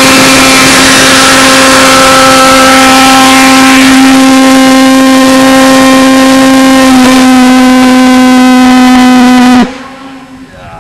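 Model boat's pulsejet engine running flat out with a very loud, steady, single-pitched drone. It cuts off suddenly near the end.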